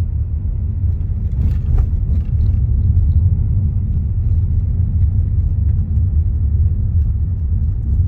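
Car driving along a road: a steady, loud, low rumble of road and engine noise.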